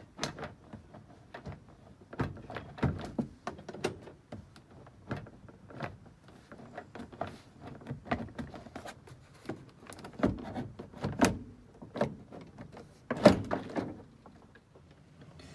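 Honda Element interior door trim panel being worked up and off the door: irregular clicks, knocks and scraping of the panel against the door, with a louder knock near the end.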